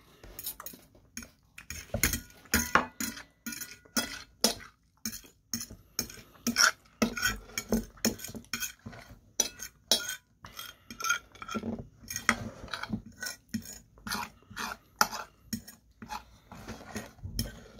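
Metal knife and fork clinking and scraping against a plate in quick, irregular strokes while cutting breaded chicken katsu.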